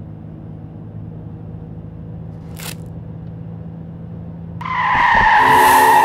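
A car's steady low running hum, then about four and a half seconds in a sudden loud tyre screech of a car braking hard, lasting about a second and a half.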